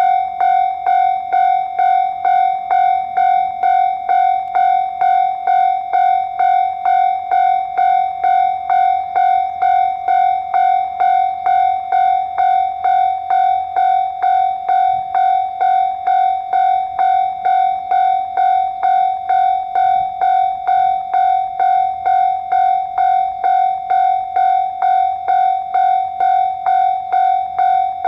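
Japanese railway level-crossing warning bell ringing steadily, one electronic clang repeated about twice a second, the signal that a train is approaching.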